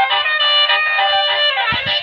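Basuri telolet multi-tone bus air horn playing a quick melody, its buzzy notes changing every fraction of a second, with a short sliding run of notes near the end.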